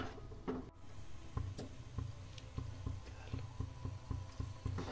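United pressure cooker heating on a gas burner as it builds pressure before its whistle: a faint low rumble with scattered light ticks and clicks.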